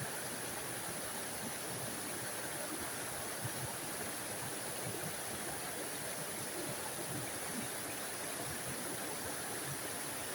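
Small forest waterfall: water splashing and rushing steadily over rocks, an even hiss with a bright high edge.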